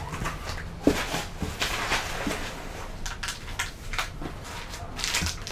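Hands rummaging in a cardboard shipping box, with packaging rustling and a run of light knocks and clicks as a packet is pulled out.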